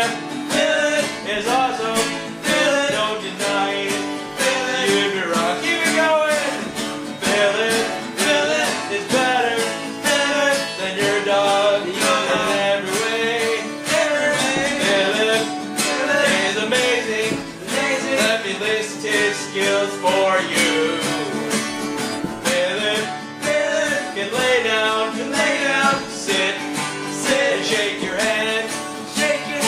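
Two acoustic guitars strummed together in a steady rhythm, playing a song.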